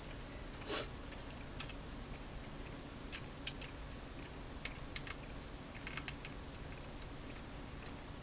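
Hard plastic model-kit parts clicking and tapping as they are handled and pressed together, a dozen or so scattered sharp clicks with a longer rustling click about a second in.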